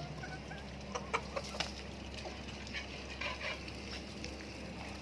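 Hens clucking: a few short sharp calls about a second in, then another quick run of clucks around three seconds in.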